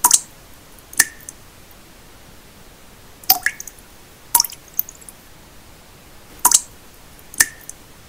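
Water drops falling one at a time into still water: six short, sharp drips in three pairs about a second apart, each with a brief ringing plink. Underneath runs a steady bed of pink noise.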